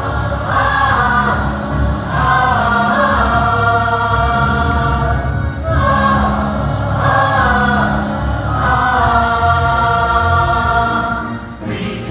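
Mixed high school chamber choir singing a Broadway show tune, held notes in phrases of two to three seconds with short breaks between them, over a continuous low accompaniment.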